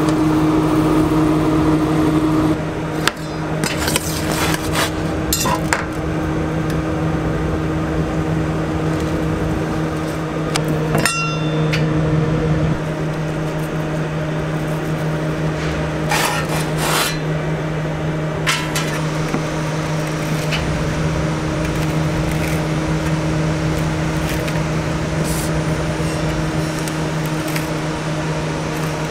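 Steady machine hum with a strong low tone, broken by several sharp clanks and knocks from a metal pizza pan being handled and a rocker blade cutting a pizza on a wooden board.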